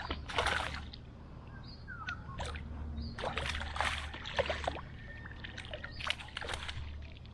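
Water splashing and sloshing in three bursts as a hooked fish, a rohu, fights at the surface while being played on the line.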